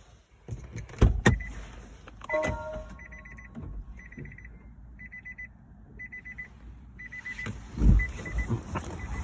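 Electronic beeping, likely from DC fast-charging equipment: a rapid trilling beep repeated about once a second, five times, after a few clunks and knocks. More loud clunks near the end.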